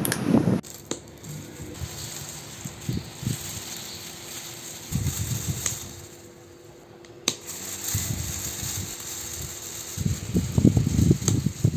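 Small DC motor of a rechargeable table fan running with a steady hum, with irregular low bumps and a sharp click about seven seconds in.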